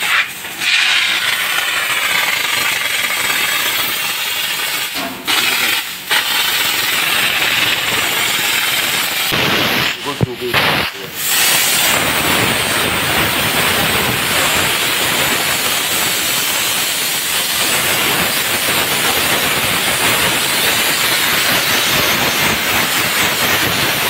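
3 kW electric steam cleaner's gun jetting steam in a loud, continuous hiss. It breaks off briefly a few times in the first eleven seconds or so, then runs steady.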